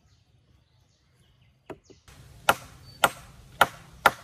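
Hammer striking a nail to fix a wooden crossbar pole to an upright post: two light taps, then four sharp blows in the second half, about two a second, each with a short ring.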